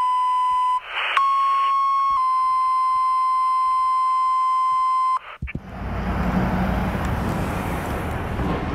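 Fire dispatch pager tones. A steady beep, a short burst of radio static, then a two-tone page: a one-second tone followed by a slightly lower three-second tone. About five seconds in they cut off abruptly, giving way to street noise and the low rumble of a fire engine's motor.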